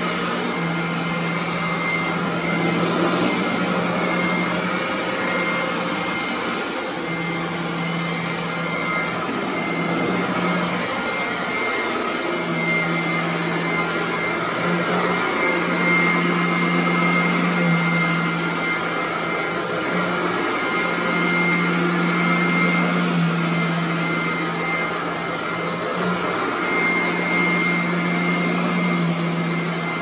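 Vintage Royal commercial upright vacuum cleaner running on carpet, pushed back and forth. A steady motor hum and whine, the hum dropping out and the level swelling and dipping every few seconds with the strokes.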